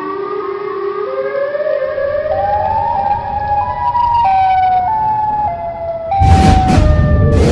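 A siren wail that climbs in pitch in steps for the first few seconds and then steps back down. About six seconds in, a loud, noisy rumble comes in over it.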